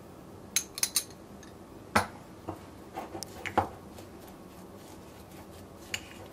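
Metal teaspoon clinking and scraping in a small ceramic ramekin while ground hazelnuts and oil are stirred together: scattered sharp clinks, the loudest about two seconds in and a quick cluster a little later.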